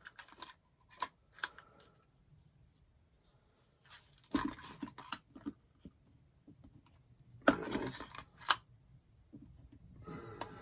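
Handling noise from a hairdryer being taken apart: scattered clicks of small plastic parts, with two short bursts of clattering about four and seven and a half seconds in.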